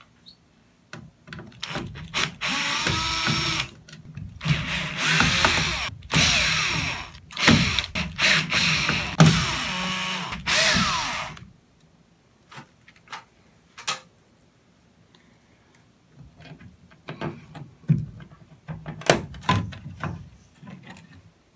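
Cordless drill-driver backing out the screws that hold an LED circuit board in a ceiling light fixture: about six short runs of motor whine that rise and fall in pitch. After them come light clicks and knocks as the loosened board is handled and taken down.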